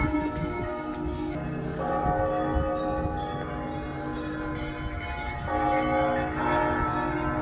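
Orthodox church bells ringing together in a peal: several bells of different pitches struck again and again, their ringing overlapping without a break.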